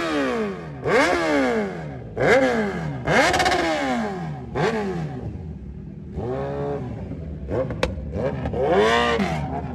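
Kawasaki motorcycle engine revved in about six short blips, each rising quickly in pitch and falling back. The first four come fast, and the last two are slower, rounder swells.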